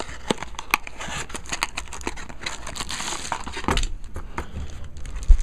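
Hands opening a small cardboard box and rummaging through plastic packaging: a steady run of crackles and rustles, with a few dull knocks near the end, the loudest about five seconds in.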